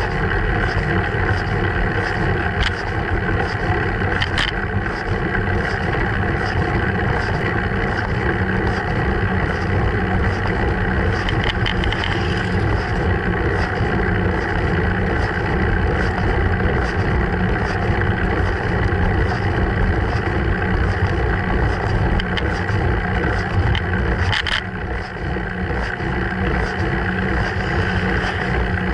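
Steady wind and road rumble on the microphone of a Sony HDR-AS15 action camera mounted on a moving bicycle, with a few clicks.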